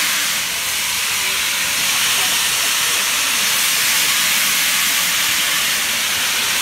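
Steady hiss of steam from the open cylinder drain cocks of the LNER Peppercorn A1 Pacific steam locomotive 60163 Tornado as it moves slowly off.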